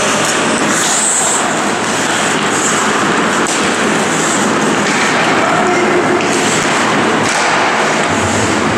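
Ice hockey game sound in an indoor rink: a steady hiss of skates on the ice with a few sharp stick-and-puck knocks and scattered distant shouts.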